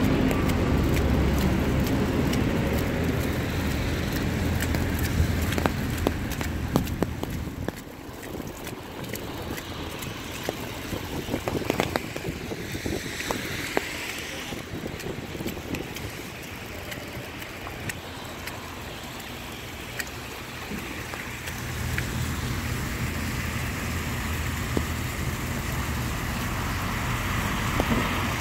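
Street traffic on a snowy, slushy road: cars driving past, their tyres hissing on the wet surface. There is a steady low rumble for the first several seconds, scattered light ticks in the quieter middle, and a car's hiss swells and fades about halfway through.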